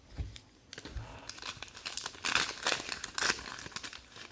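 Crinkling and rustling of trading card pack wrappers being handled, in irregular bursts, loudest from about one to three and a half seconds in.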